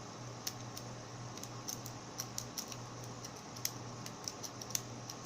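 Light, irregular metallic clicks of an Octo rake rocking against the pin stacks inside a Master Lock 140 padlock under bottom-of-the-keyway tension, as the pins are worked toward a false set. The clicks come over a faint steady low hum.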